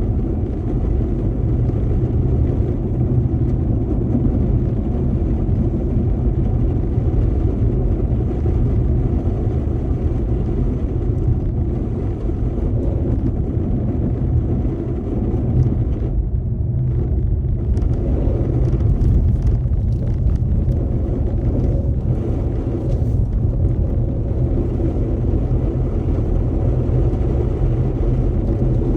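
Car driving along a road: a steady low rumble of engine and tyre noise, briefly dipping in its higher sounds about two-thirds of the way through.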